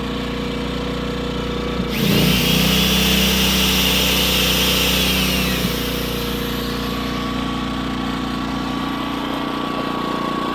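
Loncin 2000i inverter generator running steadily. About two seconds in, a plugged-in electric drill runs with a high whine for about four seconds. The generator's engine note shifts as it regulates its speed to the drill's load.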